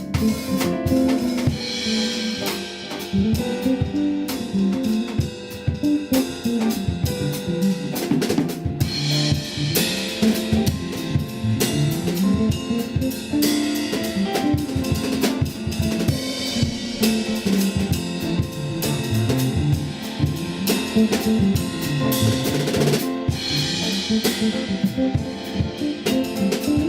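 Music: an electric bass guitar plays a moving bass line over a busy drum-kit groove with snare and kick drum.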